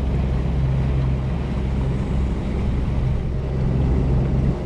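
Boat's outboard motor running steadily as the boat travels, a constant low hum under a rushing hiss of wind and water.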